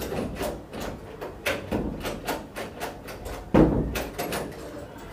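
Irregular knocks and clatters, about three a second, with a heavier thump about three and a half seconds in.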